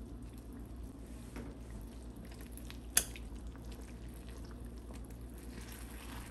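A metal fork prodding a pot roast in a slow cooker's ceramic crock: soft wet squishing and small clicks, with one sharp clink about three seconds in, over a low steady hum.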